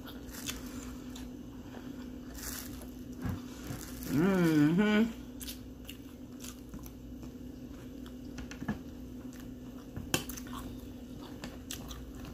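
A person eating ring-shaped oat cereal in milk: chewing and crunching, with light clicks of a metal spoon against the bowl. About four seconds in comes a brief hum from the eater, about a second long, its pitch wobbling up and down, the loudest sound here. A steady low hum lies under it all.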